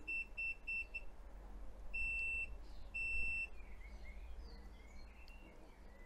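EcoFlow solar tracker's electronic beeper sounding as it starts up after being switched on: a quick run of short high beeps, about five a second, stopping about a second in, then two longer single beeps around two and three seconds in. Faint birdsong follows.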